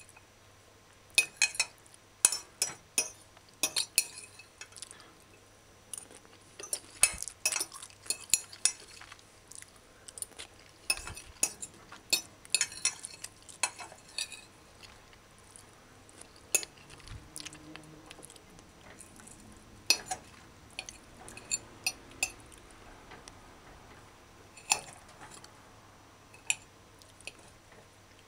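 Metal fork clinking against a china plate in irregular sharp taps, busiest in the first half and sparser toward the end.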